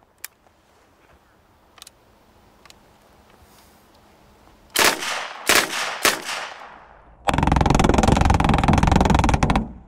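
PPSh-41 submachine gun firing 7.62×25mm rounds: about five seconds in, three sharp reports with long fading tails, then a long continuous burst of automatic fire lasting about two and a half seconds that stops just before the end.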